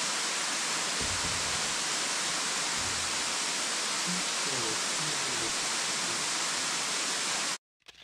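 Steady rushing of a waterfall's falling water, which cuts off suddenly near the end.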